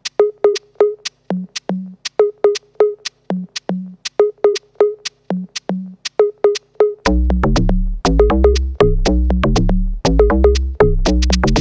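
Electronic background music: a sparse beat of crisp drum-machine hits and short synth notes, with a heavy bass line and a denser beat coming in about seven seconds in.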